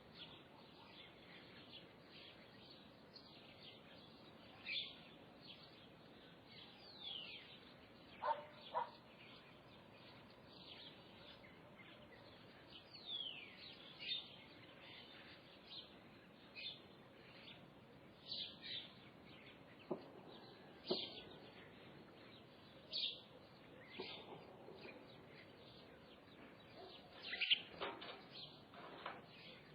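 Wild birds calling: scattered short chirps and downward-sliding whistles every second or two, over a faint steady hiss.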